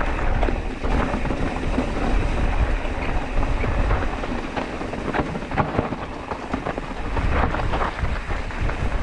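Wind buffeting the action-camera microphone as a low rumble, with the rattle and repeated knocks of a mountain bike riding over rocky, chunky trail.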